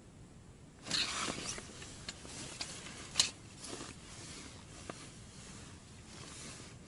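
Rustling and scuffing of clothing and tent fabric as a person shifts and stands up, starting about a second in, with a single sharp click about three seconds in.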